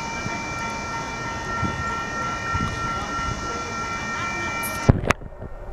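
Steady hiss and hum with a few held tones from a stopped Union Pacific intermodal stack train. About five seconds in come two sharp clicks, and the hiss stops abruptly.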